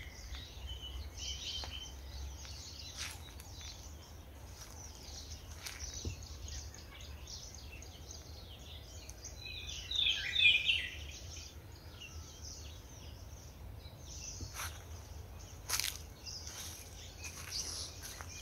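A group of birds chirping and calling, with a louder flurry of chirps about ten seconds in, over a low steady rumble. Two sharp clicks sound near the end.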